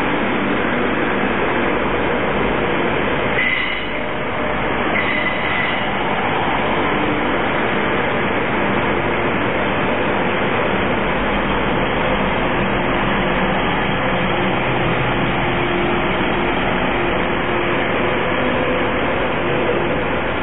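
TransPennine Express Class 185 diesel multiple units running slowly past, their Cummins QSK19 underfloor diesel engines and wheels on the rails making a steady loud rumble. Two short high-pitched squeals come at about four and five seconds in.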